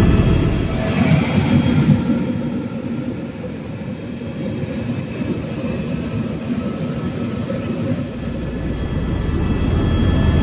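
Helicopter in flight, heard from aboard: a steady engine and rotor rumble with a high turbine whine over it, easing a little in the middle and building again near the end.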